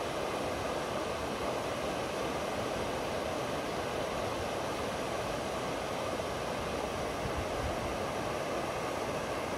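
Shallow, rocky mountain river rushing over rapids: a steady, even rush of water.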